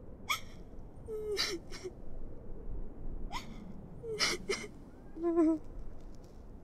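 A woman sobbing quietly: a string of short gasping breaths and whimpers, about one a second.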